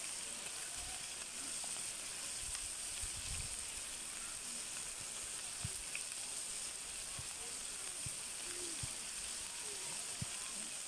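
Seekh kebabs on skewers sizzling steadily in a frying pan on a portable gas stove, with a few faint knocks.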